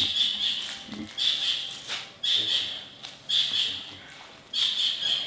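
Slow footsteps crunching on rubble and debris on a concrete floor, about one step a second, each a sharp crunch that fades quickly.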